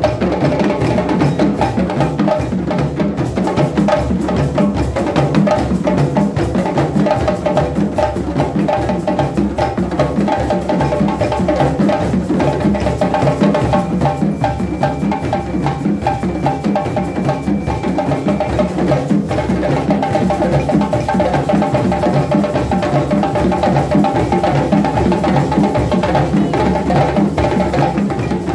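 A group of djembe hand drums played together by hand in a dense, steady, interlocking rhythm that keeps going without a break.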